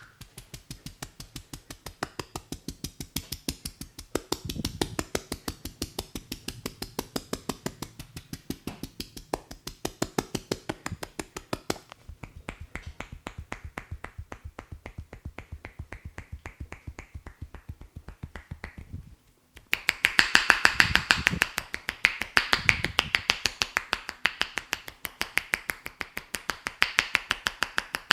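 Rapid, even hand tapping and slapping on a person's head and hair during an Indian head massage, a steady run of sharp snaps several per second. The taps stop briefly about two-thirds of the way through, then resume louder and brighter.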